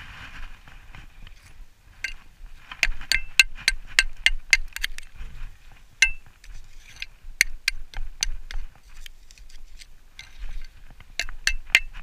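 Sharp metallic clinks of a steel digging tool striking a dirt-caked old iron axe head to knock the soil off it. They come in quick runs of about five strikes a second around three to five seconds in and again near the end, with single knocks in between.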